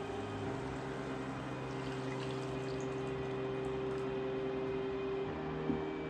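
Beef stock pouring from a measuring cup into a sauté pan of onions and red wine, the liquid splashing into the pan, over a steady hum. A small click comes near the end.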